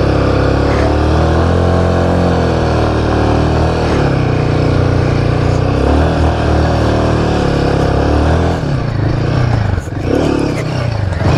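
Royal Enfield Himalayan 450's single-cylinder engine running while the bike is ridden, its pitch rising and falling with the throttle. Near the end the note breaks up into rougher noise.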